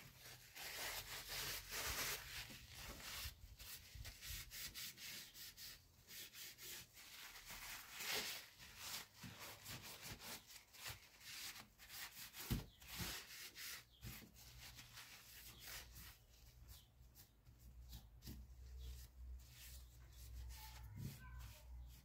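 Faint, quick strokes of a paper towel rubbed over the coated steel hilt of a K98 bayonet, wiping it down, with one light knock about halfway through.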